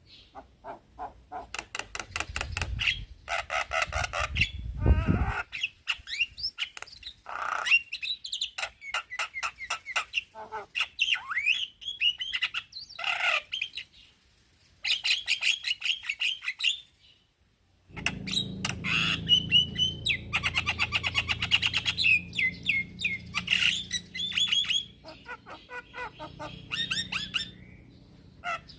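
Male Javan myna (jalak kebo) singing a long run of chirps, rattling squawks and gliding whistled notes, with two short pauses near the middle.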